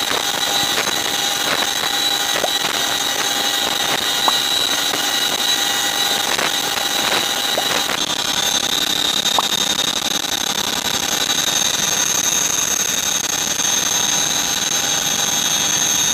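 CH-47F Chinook helicopter's twin turbine engines giving a steady high-pitched whine, with a few faint clicks and no clear rotor beat.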